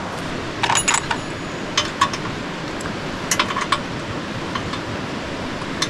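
Scattered metal clinks and small knocks of parts being handled while a Skottle camp grill is put together, over a steady rushing background noise.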